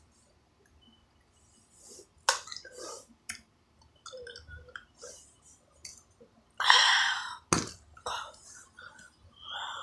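Mouth noises close to the microphone, with a few sharp clicks and a louder breathy burst about two-thirds of the way in.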